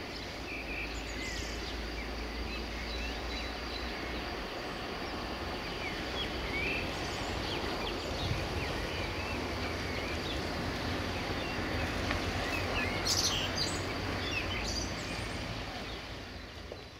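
Outdoor evening ambience: songbirds chirping and calling over a steady background noise with a low rumble underneath. The sound fades out near the end.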